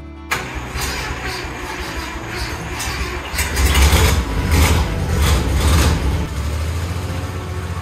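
A 1956 Chevrolet truck engine on its first start-up, running and revved several times in the middle, then settling into a steady idle near the end.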